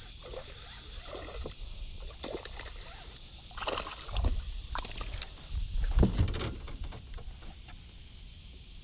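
Largemouth bass thrashing and splashing at the surface beside a small boat as it is reeled in and landed, with a few sharp splashes about four seconds in and a heavy thump about six seconds in.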